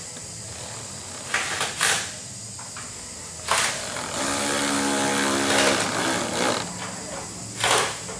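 Cordless driver motor running steadily for about a second and a half in the middle, backing out a fastener at the bumper's edge. Short scraping and handling noises of the tool and trim come before and after.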